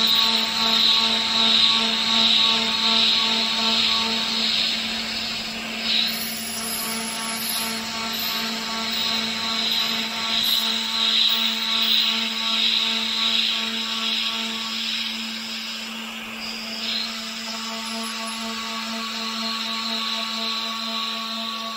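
CNC router spindle running with a thread mill cutting threads into an aluminium plate: a steady whine under a cutting hiss that swells and fades over and over as the tool works around the hole.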